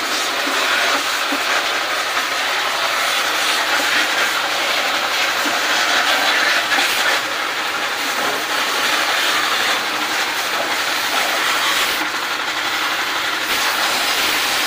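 Power sprayer (pressure washer) running, its water jet hissing steadily against the window air conditioner's coil.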